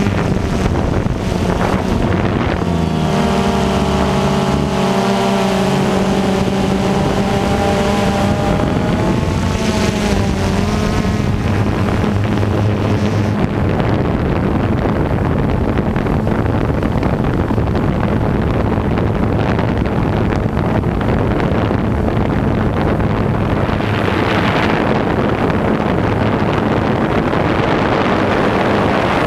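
Quadcopter drone's electric motors and propellers buzzing steadily, heard from the camera riding on the drone, with wind noise over the microphone. The motor pitch wavers up and down from about three to eleven seconds in.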